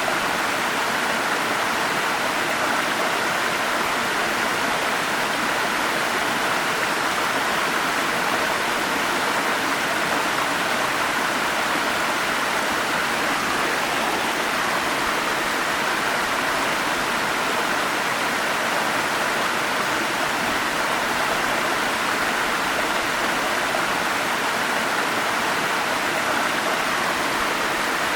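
Forest stream rushing steadily: an even, unbroken wash of flowing water.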